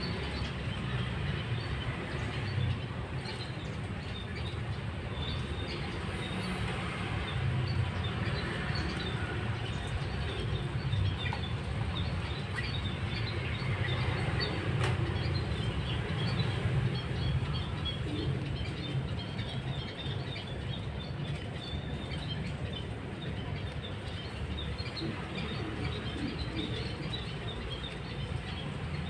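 A steady low outdoor rumble with many faint, short high ticks and chirps scattered throughout, while a street cat eats dry kibble from a plastic tray.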